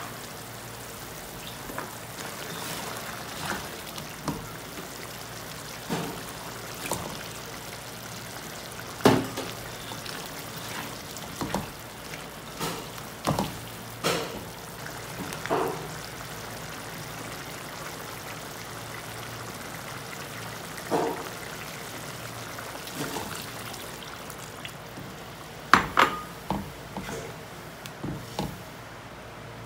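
Lentil curry simmering in an aluminium wok, a steady bubbling hiss, with a plastic spatula stirring and knocking against the wok every few seconds, the sharpest knocks about nine seconds in and near the end.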